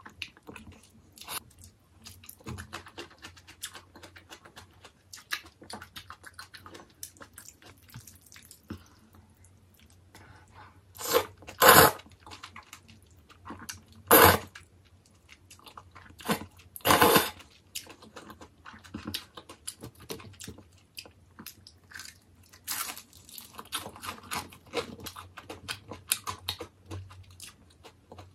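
Close-miked mouth sounds of eating jjajangmyeon (black bean sauce noodles): wet chewing and small smacking clicks, with a few louder slurps of noodles near the middle.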